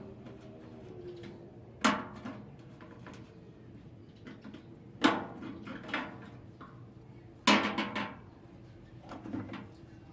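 Hard knocks and clatters of parts being handled while a microwave oven is dismantled for scrap: three loud ones about 2, 5 and 7.5 seconds in, each ringing briefly, with lighter clicks between.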